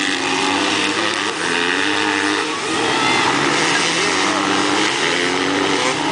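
Several dirt bikes racing past, their engines revving up and down in overlapping notes as they accelerate through a turn.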